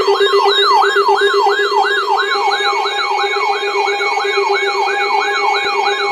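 Electronic siren sounding a fast yelp: its pitch sweeps up sharply and slides back down about three times a second, over a wavering high tone and a steady low hum-like tone.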